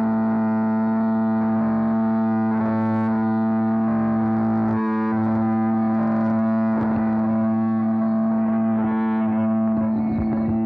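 Bagpipes playing, their drones holding one steady chord under a changing chanter tune, with electronic feedback and distortion fighting the piper on the recording.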